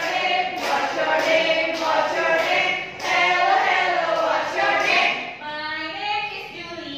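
A group of women singing a simple song together without instruments, quieter over the last couple of seconds.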